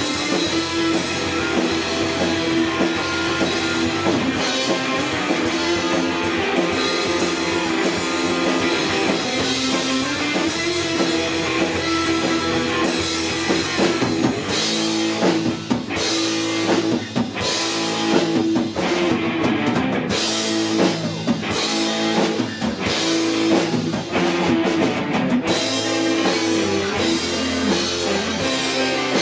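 Live rock band playing an instrumental passage: electric guitars and a drum kit. From about halfway through, the drums hit in short, clipped stabs with brief gaps between them.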